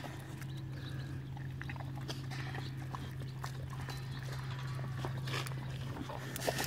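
Boxer dogs sniffing and moving about on dry dirt, with scattered small scuffs and ticks, over a steady low hum.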